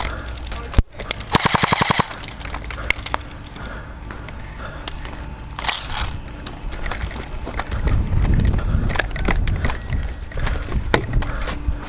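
Airsoft rifle firing a short rapid full-auto burst about a second in, then scattered single clicks. A low rumble builds near the end as the player moves.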